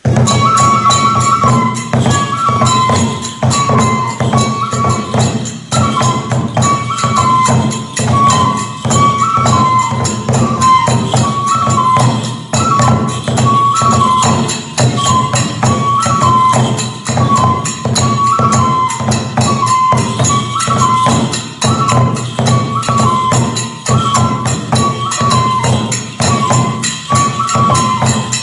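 Kagura festival music starting abruptly: a transverse flute repeats a short phrase over fast, steady drum beats and jingling small hand cymbals.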